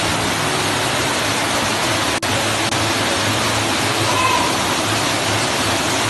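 Muddy floodwater pouring in through an open doorway and flowing through a house: a steady, loud rush of water.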